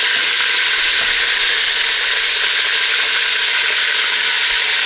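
Beef roast sizzling as it browns in a deep pot on a gas stove: a steady crackling hiss.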